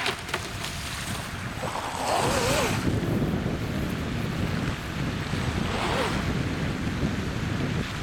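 Brushless-converted NQD High Wind RC boat (3000kv inrunner motor, two-blade prop) running on open water, its motor whine and spray swelling twice as it passes close, over steady wind on the microphone.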